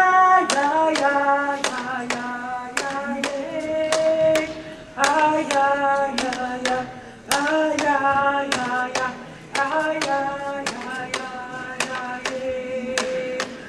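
Music: a song with a sung or melodic line over a sharp clapping beat.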